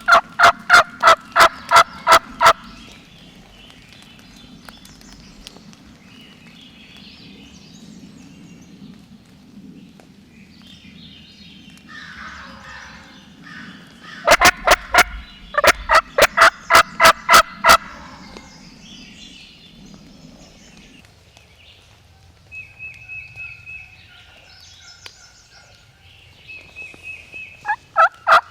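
Wild turkey tom gobbling three times: loud rattling gobbles at the start, about halfway, and near the end. Songbirds sing faintly in between.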